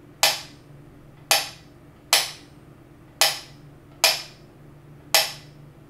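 Wooden mechanical pendulum metronome ticking steadily, six sharp clicks about a second apart. The gaps alternate slightly longer and shorter, the uneven tick-tock of a metronome a little out of beat.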